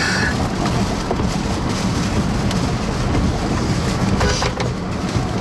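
Steady rush of wind and rain on a moving vehicle, with tyre noise on the wet road.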